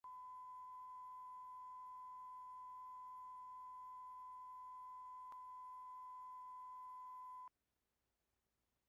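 Broadcast test tone sounding with the colour bars: a single steady pitch that cuts off suddenly about seven and a half seconds in.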